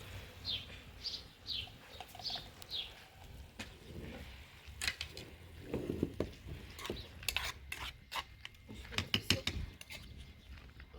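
A bird chirping, six short falling chirps about half a second apart, then scattered clinks and knocks like dishes or utensils being handled.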